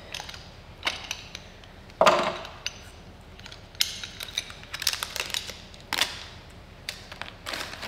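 Small metal fittings and parts of a fuel-tank sump kit clinking and clattering as they are handled and fitted together in gloved hands. The sharpest knock comes about two seconds in, with a run of lighter clicks about four to six seconds in.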